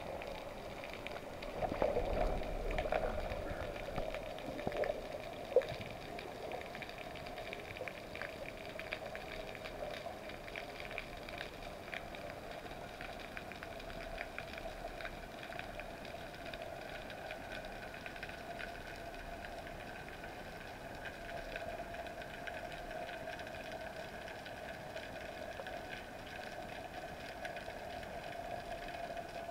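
Underwater ambience heard through a diving camera's housing during a freedive descent: a constant faint crackling with a steady hum beneath it. Soft knocks come in the first few seconds and one sharp click about five seconds in.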